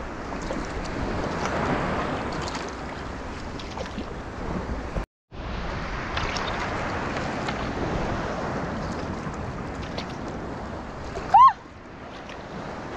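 Sea water washing and lapping around a kayak, with wind on the microphone. About five seconds in the sound cuts out briefly. Near the end comes one short, loud, high-pitched squeal with a bending pitch.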